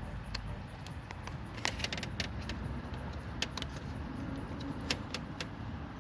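Irregular metallic clicks and clinks of hand tools on the car's metal parts, over a steady low rumble.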